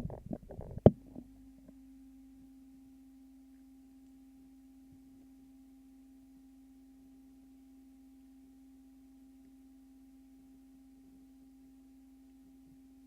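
A faint, steady low hum or tone, held unchanged, after a brief clatter ending in a sharp click about a second in.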